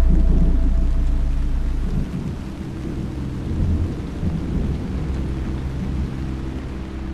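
A deep rumble that fades away over the first two seconds, followed by a quieter, uneven low rumbling drone with a few steady low tones and a faint hiss over it.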